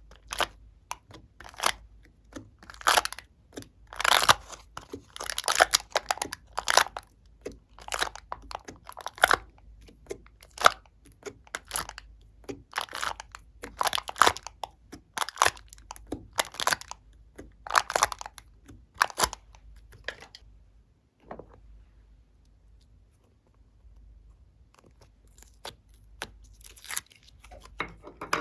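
Glossy slime being kneaded and pressed by hand, giving a quick run of sticky crackles and pops. It goes almost quiet for several seconds about three-quarters of the way through, then the crackling starts again near the end.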